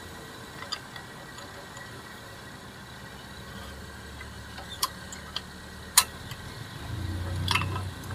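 A few sharp metallic clicks from a screw-type brake caliper piston compressor, turned by hand to press the caliper piston slowly back into its bore. A low rumble rises near the end.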